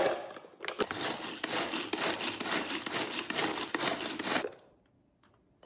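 A small Lock&Lock food processor chopping sliced Cheongyang green chillies, a rough, uneven grinding noise that stops abruptly about four and a half seconds in.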